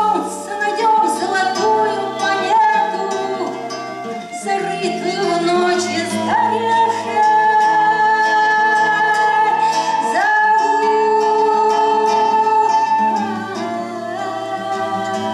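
Acoustic guitar accompaniment under a wooden svirel (folk pipe) playing long held notes that slide up into pitch twice, with a woman singing.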